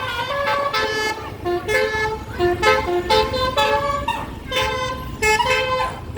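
A bus's basuri telolet horn playing a quick melody of short notes that step up and down, with a brief break about four seconds in. A low engine and road rumble runs underneath.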